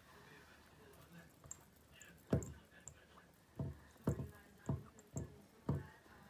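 Rubber spatula scraping chalk ink across a silkscreen transfer laid on a wooden block: about six short, dull, squishy strokes from about two seconds in, with a few faint ticks.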